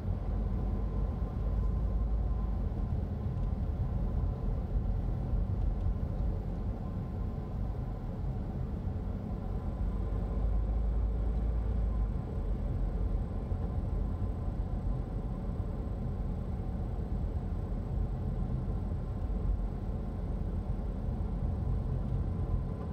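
A car driving slowly, heard from inside the cabin: a steady low rumble of engine and tyre noise on a paved road.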